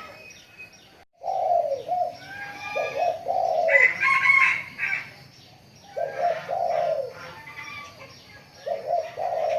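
Spotted dove cooing: three phrases of low, slightly falling coo notes, with a louder, higher-pitched call about four seconds in.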